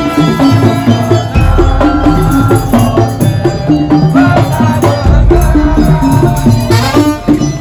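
Madurese daul-style percussion ensemble music: a fast steady beat with shakers and drums under a melody line, with deep bass notes coming in for stretches of a second or more.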